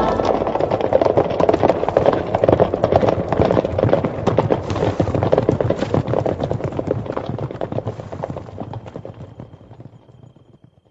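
Hoofbeats of horses galloping, a dense, uneven drumming of many hooves that fades away over the last few seconds.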